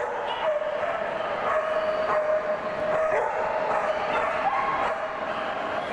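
A dog whining in one long, high, steady whine that shifts slightly in pitch and stops about five seconds in.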